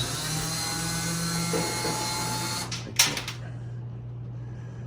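Cordless drill with a Phillips bit running in reverse for nearly three seconds, backing a screw out of a dryer's sheet-metal panel, then stopping; a sharp knock follows a few moments later.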